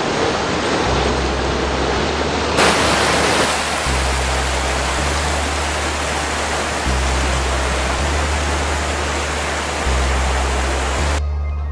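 Rushing water of a mountain stream tumbling over boulders, a loud steady hiss that gets brighter about two and a half seconds in and stops shortly before the end. Low sustained music notes run underneath, shifting every second or two.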